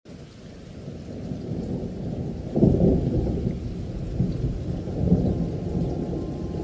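A deep rumble that builds up, jumps suddenly louder about two and a half seconds in and swells again near five seconds, like rolling thunder.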